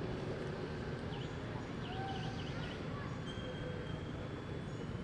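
Outdoor ambience: a steady low rumble, with a few short, high chirps repeating quickly about one to three seconds in.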